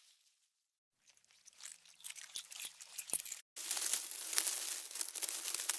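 Amplified ants chewing: a dense, dry crackling of many tiny clicks. It is silent for about the first second, then builds, cuts out briefly past the three-second mark and comes back louder.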